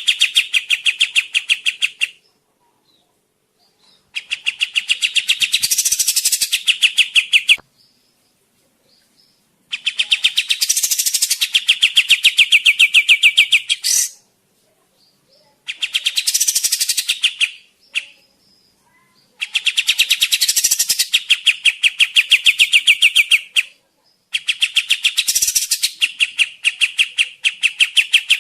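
Kapas tembak (striated grassbird) singing in repeated bouts of fast, evenly spaced chattering notes. Each bout lasts a few seconds, with short silent pauses between them, about six bouts in all. This is the lively, full 'gacor' song used as a lure call.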